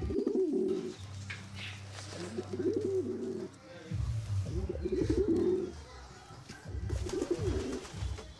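Domestic pigeons cooing in repeated bouts, about four coos roughly two seconds apart.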